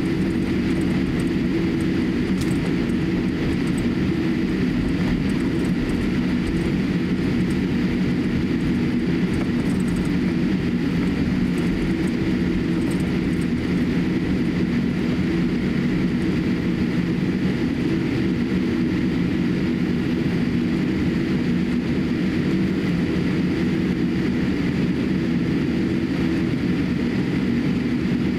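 Steady cabin hum of a Boeing 787-8 airliner taxiing, its engines at low power with a constant low drone and a light hiss over it.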